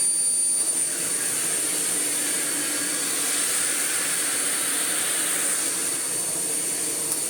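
Miele Blizzard CX1 bagless vacuum cleaner running with a steady rush of air and a high motor whine. Near the end it is switched off with a click, and the whine begins to fall away.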